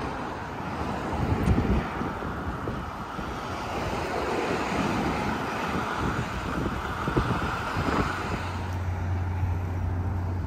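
Wind buffeting the microphone of a camera carried on a moving bicycle, mixed with the noise of car traffic passing in the lanes alongside. Near the end a steady low hum comes in.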